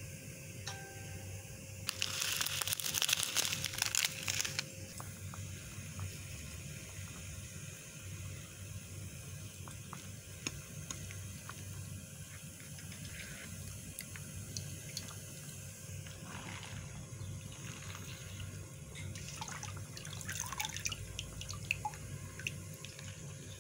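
Water poured into a pot of okra and vegetables, splashing loudest in a burst a couple of seconds in. Scattered clicks follow, then a stretch of crackling and rustling as spinach leaves go into the pot, all over a faint steady hum.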